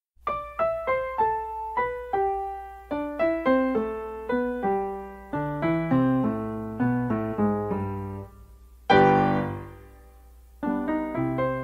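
Background piano music: a tune of separately struck notes, with a lower part joining a few seconds in. About nine seconds in a louder chord rings out and fades before the notes pick up again.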